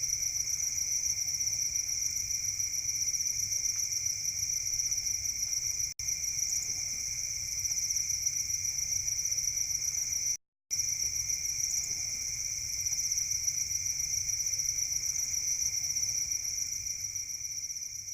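Dense, continuous chorus of many crickets chirping, a steady high trill that breaks off for a split second about ten seconds in.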